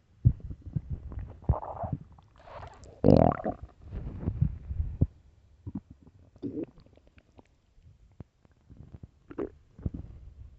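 An empty stomach growling and gurgling in irregular bursts, the sign of hunger. The loudest gurgle comes about three seconds in, and there is a quieter stretch past the middle.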